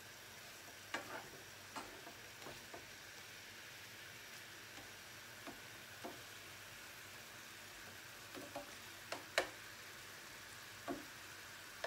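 Marinated beef slices frying in their pooled marinade liquid in a frying pan, a faint steady sizzle. Scattered clicks and taps of tongs against the pan and meat as the slices are turned, the sharpest about nine seconds in.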